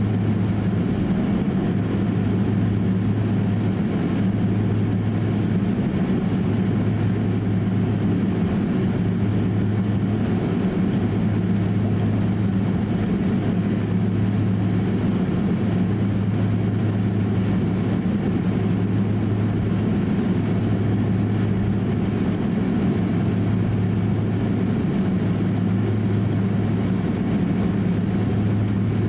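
Cabin noise inside a Boeing 767-300 airliner taxiing on the ground. The jet engines at low taxi power give a constant hum with a steady low drone, unchanging throughout.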